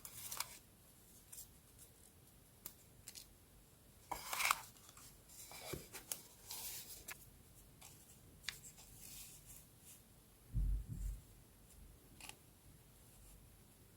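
Scissors snipping paper and paper pieces being handled for scrapbooking: scattered light clicks and brief rustles, with a couple of soft low thumps about two-thirds of the way through.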